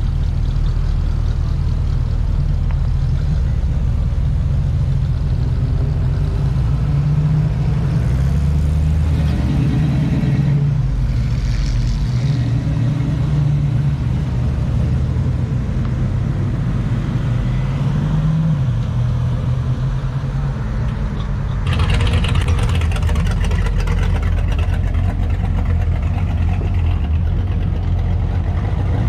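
Hot rod and street rod engines running as cars drive slowly past one after another, the engine pitch rising briefly a few times. About three-quarters of the way through, a louder, rougher exhaust comes in.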